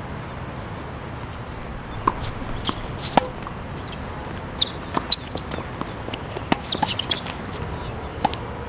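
A tennis point on an outdoor hard court: scattered sharp knocks of the ball coming off the racket and bouncing on the court, mostly from about two seconds in, over a steady background hiss.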